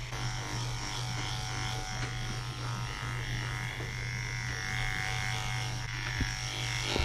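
Cordless electric dog-grooming clippers running steadily with a constant hum, shaving through a dog's matted curly coat.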